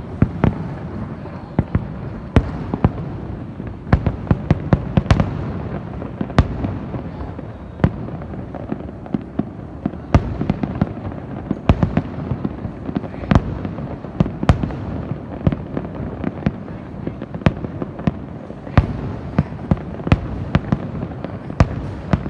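Fireworks display: a continuous rumble of distant bursts with many sharp bangs on top, irregular and often several a second.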